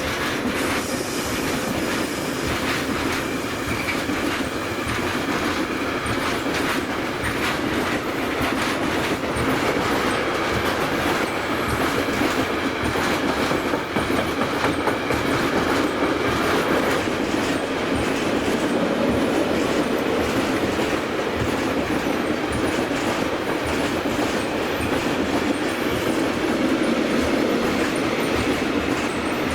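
A train passing on the line, its wheels clattering over the rail joints in a steady, loud run of rail noise.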